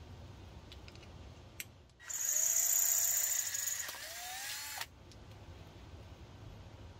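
Power drill running for about three seconds, widening a bolt hole in 80/20 aluminium extrusion so an M5 bolt will fit. The motor whine steadies, drops in level, then rises in pitch just before it stops.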